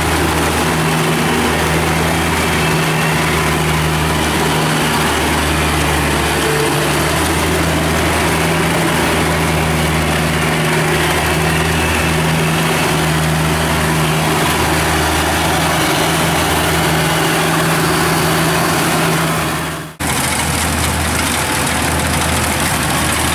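Kubota DC70 rice combine harvester's diesel engine running steadily while it harvests, its drone under a dense noisy wash of machinery. The low part of the drone pulses about once a second, and the sound drops out briefly about 20 seconds in, then resumes.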